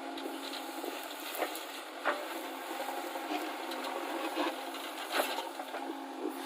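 JCB backhoe loader's engine running at a steady pitch, with scattered knocks and clanks, the loudest about two seconds in and about five seconds in.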